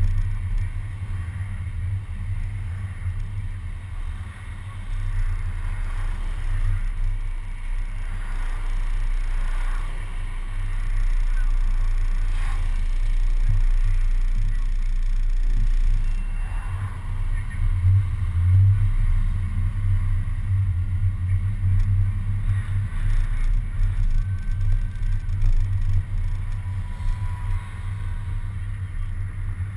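City bus's engine and road noise as a steady low rumble, picked up by a camera suction-mounted on the front of the bus.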